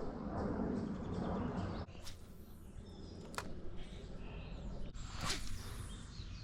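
Outdoor ambience by the water: a rustling noise that stops abruptly about two seconds in, then faint short bird chirps and a few small clicks.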